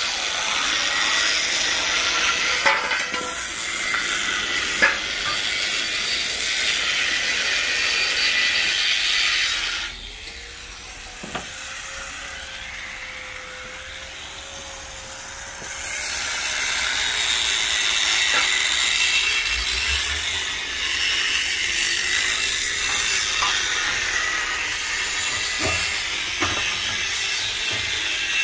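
Metalworking on a truck's steel chassis frame during frame reinforcement: a loud, harsh, steady hiss that stops about ten seconds in and starts again about six seconds later.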